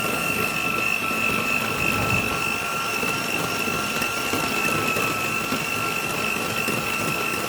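Electric kitchen mixer running steadily with a constant high whine, mixing lemon into a cream filling.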